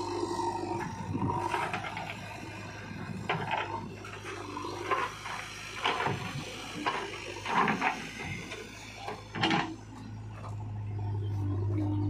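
JCB 3DX backhoe loader's diesel engine running steadily while soil and clods tip from the backhoe bucket into a steel tractor trolley. From about three to ten seconds in there is a run of sharp thuds and rattles as the load lands.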